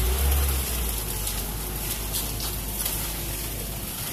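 Fresh wet concrete being spread with rakes and hoes, an even wet scraping hiss, over the low, steady running of a concrete mixer truck. The truck's low rumble is strongest for about the first half-second.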